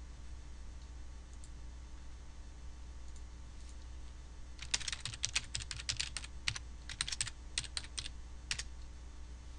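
Typing on a computer keyboard: a quick run of keystrokes in short clusters, starting about halfway through and stopping about a second before the end, over a steady low hum.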